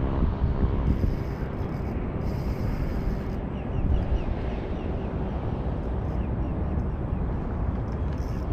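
Wind buffeting an action camera's microphone: a steady low rumble that varies in strength. A few faint, short, high falling chirps sound over it a few seconds in.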